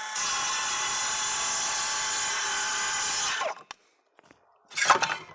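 Metabo 36-volt multivolt 7-1/4 inch cordless circular saw running in its silent mode and cutting through a piece of gum wood for about three and a half seconds, then winding down and stopping. A thump follows about a second later.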